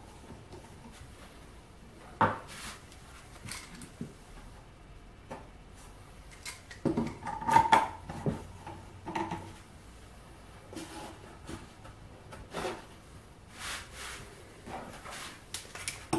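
Steel F-clamps being slid along their bars and tightened onto plywood: scattered metallic clicks and clanks with knocks on wood, busiest about seven to eight seconds in.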